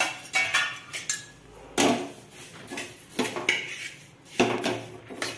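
A metal spatula stirring and scraping flaxseeds as they dry-roast in a metal frying pan: a run of uneven scrapes and clinks, about two a second.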